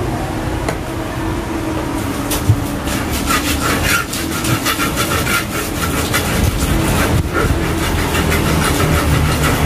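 Pestle grinding peanut sauce with petis in a large earthenware cobek mortar: repeated scraping and rubbing strokes that start about two and a half seconds in and keep on.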